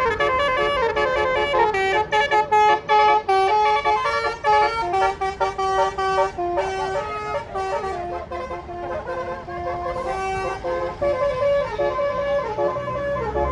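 Bus telolet horn, a Basuri multi-note air horn, playing a tune of quickly changing notes, quieter in the second half.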